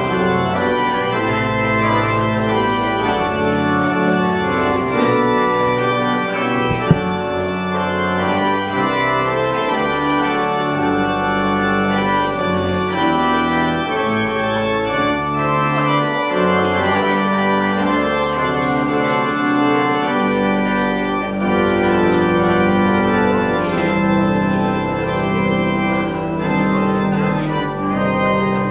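Church organ playing the closing voluntary: sustained full chords that move from one to the next every second or so. A single sharp click sounds about seven seconds in.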